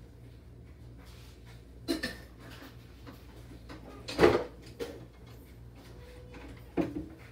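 Kitchenware clattering in a low kitchen cabinet as things are moved about inside it: a few separate knocks, the loudest about four seconds in, and a last knock near the end as the cabinet door is handled.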